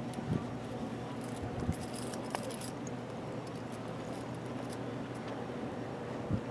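A steady low hum under wind and water noise, with light metallic jingling a little over a second in and a few dull knocks, the last near the end.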